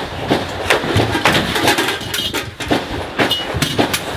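A series of sharp, irregular knocks and bangs in a small room.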